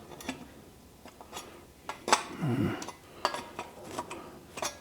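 Sharp metal clinks and clicks, several in a row, as air tools are slid one after another into the slots of a homemade steel hanging rack to check the fit.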